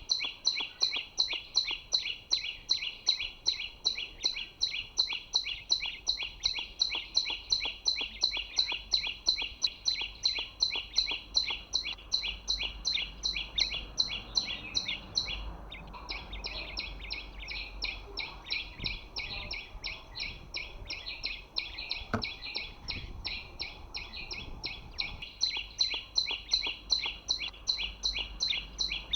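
A small songbird's chirping call repeated rapidly and very evenly, about four notes a second, with a brief break about halfway through.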